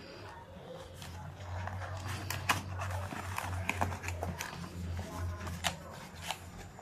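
Handling noise: scattered clicks, knocks and rubbing as hands move plastic parts and a divider inside a zippered hard-shell camera case, over a low steady hum.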